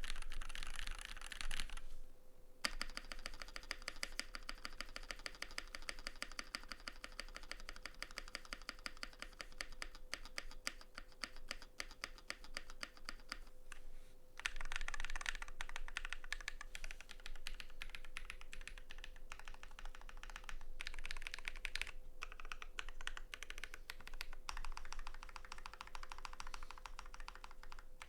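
Tofu96 custom mechanical keyboard being typed on at speed: lubed Holy Panda tactile switches on a brass plate under GMK keycaps, giving a dense stream of keystroke clacks. The typing stops briefly twice.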